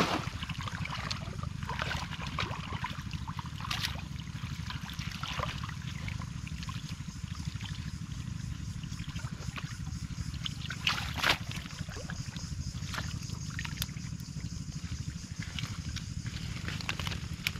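Muddy water sloshing and splashing as a person wades and drags a fishing net through dense water hyacinth, with scattered rustles and a louder pair of splashes about eleven seconds in. A steady low rumble runs underneath.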